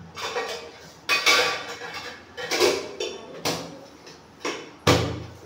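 Pots and utensils being handled, clattering and knocking again and again, with a loud clatter about every second.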